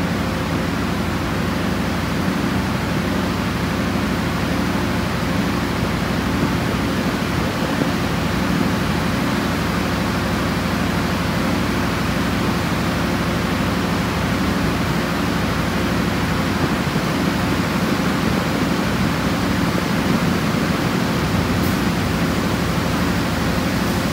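KAI CC 201 diesel-electric locomotive running steadily as it comes slowly into the station: a low, steady engine hum under a dense rushing noise.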